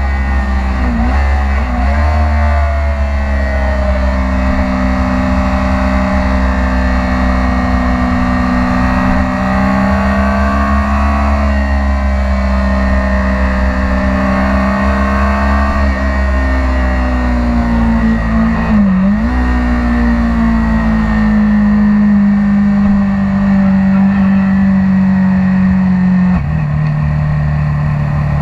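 Kawasaki Ninja 400 parallel-twin engine running hard at high revs under a rider at track speed, with low wind rumble on the bike-mounted microphone. The pitch rises and falls gently, dips briefly a few times at gear changes, and drops a step near the end.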